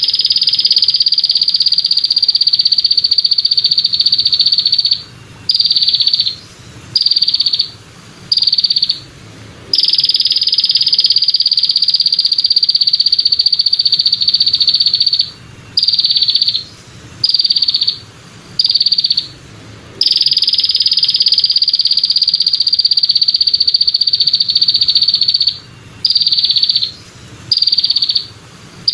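Belalang kecek (a katydid) calling with a steady high buzz: a long unbroken stretch of about five seconds, then four short bursts, the same pattern repeating about every ten seconds.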